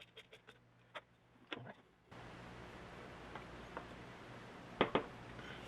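Even mechanical ticking, about five ticks a second, that stops early, then a few light knocks. About two seconds in a steady low hum sets in, with a sharp double click near the end.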